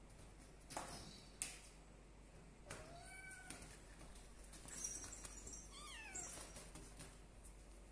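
One-month-old kitten mewing twice, faintly: a short arched mew about three seconds in and a higher mew sliding down in pitch about six seconds in. A couple of light knocks come first.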